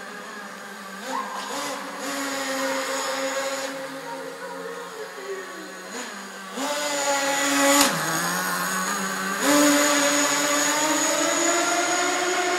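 Kyosho Fazer FXX radio-controlled car's small engine and exhaust revving in a concrete parking garage. It rises about a second in, holds, falls away near the middle, and picks up again. After a brief dip with a click, it climbs steadily toward the end.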